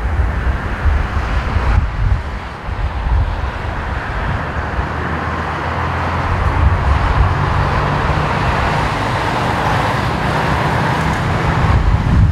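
Boeing 787-9 airliner's Rolls-Royce Trent 1000 turbofans on short final and flare, a steady jet rumble and hiss that grows louder as the aircraft closes in to touchdown.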